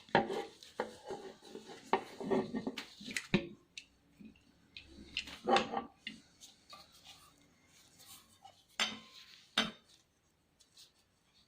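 Small metal parts of an antique camera clinking and knocking as they are handled, in irregular clusters of sharp clicks, falling almost silent near the end.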